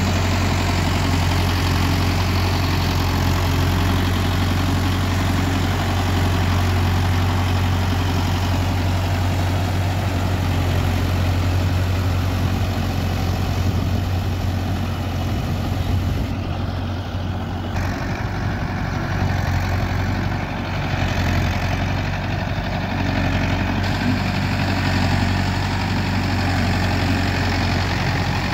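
Mahindra Yuvo 585 4WD tractor's 50 hp direct-injection diesel engine running steadily under load as it drives a rotavator through flooded paddy mud, with a steady low drone.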